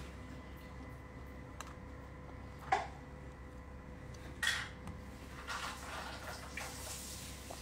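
Plastic forks knocking and scraping against a bowl as noodles are stirred and lifted: a few light clicks, the clearest about three and four and a half seconds in.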